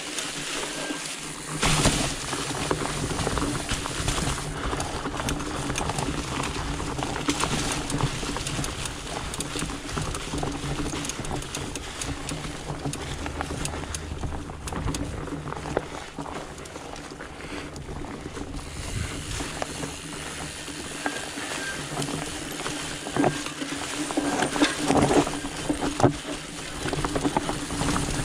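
Trek Farley 5 fat bike being ridden along a trail: steady low tyre hum with knocks and rattles from the bike over the ground, and heavier jolts about two seconds in and again near the end.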